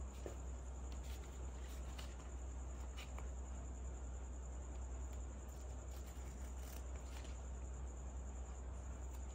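Soft handling sounds of small plastic toy kitchen pieces and a paper leaflet: a few faint clicks as pieces are set down, and paper rustling. These sit over a steady low hum and a constant high-pitched whine.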